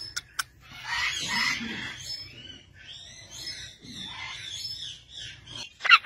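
Parakeets giving harsh, raspy calls with rising-and-falling tones, in two stretches: one of about a second starting about a second in, and a longer one from about three seconds in.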